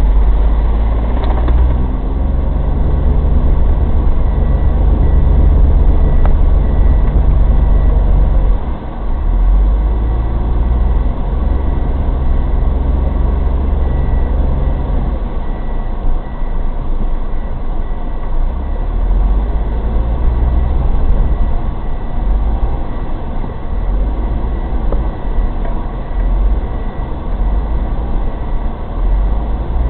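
Daihatsu Terios Kid's engine running under load through deep, drifted snow, with a heavy low rumble whose pitch changes about nine seconds in and again near sixteen.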